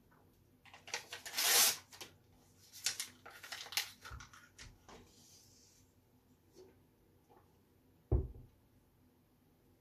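A printed paper photo being handled and torn in the hands: crisp rustling and tearing bursts over the first five seconds, loudest about a second and a half in. A single dull thump comes about eight seconds in.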